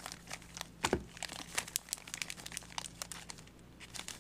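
Foil Yu-Gi-Oh booster pack wrappers crinkling and crackling as the packs are handled and shuffled, with a dull bump about a second in.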